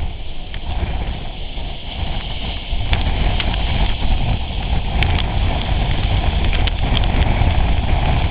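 Strong wind buffeting the microphone: a low, rumbling roar that grows louder about three seconds in, with a few faint clicks.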